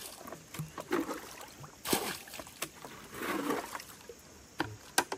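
Water being scooped out of a small pond and thrown aside, in a few irregular splashing swishes, the longest about three and a half seconds in, with a couple of sharp knocks near the end.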